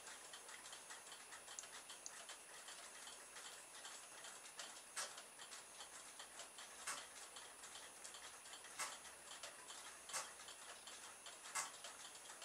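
Faint irregular ticking, with a sharper click every second or two, from small solar-powered garden-ornament flutter mechanisms running in sunlight.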